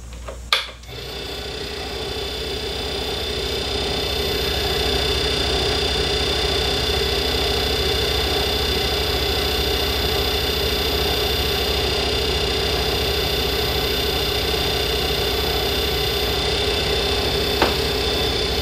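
Small lathe motor switched on with a click, coming up over a few seconds and then running steadily with a whine, spinning a nickel silver rod ferrule while abrasive paper on a block is held against it to reduce its diameter. It is switched off at the end.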